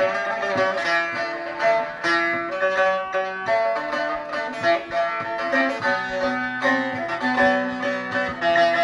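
Bağlama (saz), a long-necked Turkish lute, being played: a busy, quickly plucked melody with many short notes and a few held ones.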